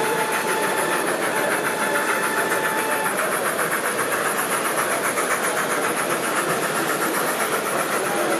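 Large-scale model steam locomotives running along layout track, a steady rolling clatter of wheels on rail, with a faint high steady tone over the first three seconds.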